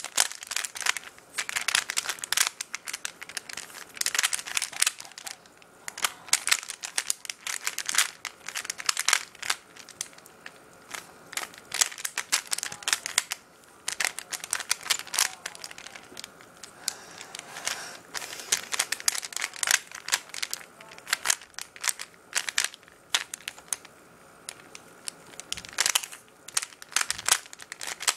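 Unlubricated 3x3 Rubik's Cube being turned fast by hand during a timed solve: quick runs of dry plastic clicks and clacks as the layers rotate, with brief pauses between runs.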